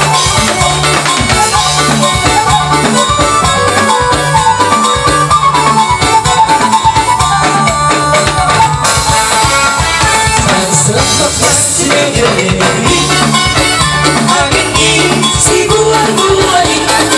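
Live band music: an electronic keyboard carries the lead melody over a steady drum-kit beat, with a woman's singing voice joining in over the second half.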